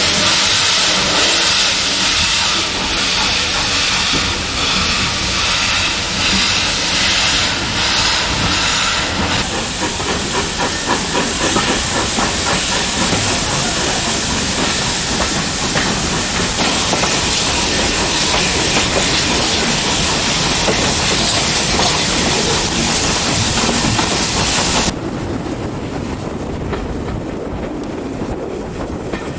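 Steam-hauled heritage train working, with loud steam hissing. After about nine seconds a steady rhythmic beat of the running train takes over. The high hiss cuts off abruptly near the end, leaving a lower rumble.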